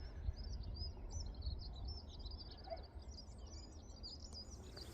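A small songbird twittering: a rapid, continuous string of short high chirps and trills, over a steady low rumble.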